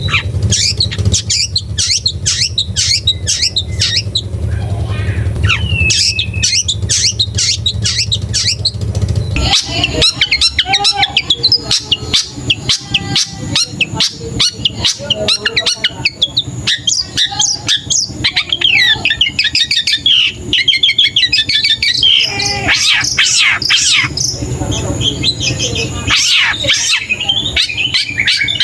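Young long-tailed shrike singing: a fast, varied chatter of short scratchy notes, quick glides and harsh squawks. A low hum runs under it for roughly the first nine seconds, then stops abruptly.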